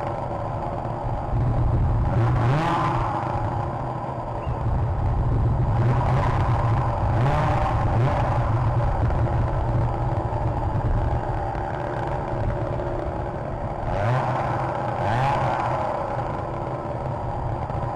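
Motor engines revving up over and over, each a rising whine lasting a second or two, about every two to four seconds, over a steady rumble.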